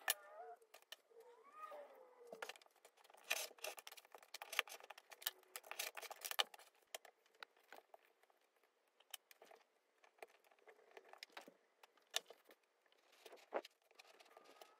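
A rotary cutter running through baseball-glove leather on a cutting mat near the start, then the cut leather pieces being handled and folded on the mat: irregular clicks, scrapes and rustles.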